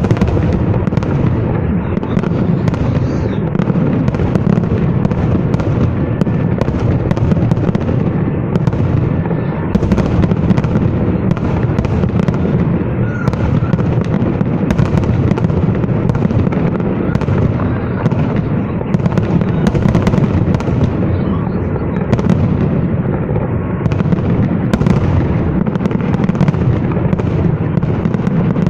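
Fireworks salute going off in a continuous barrage of booms and crackles, with no pause.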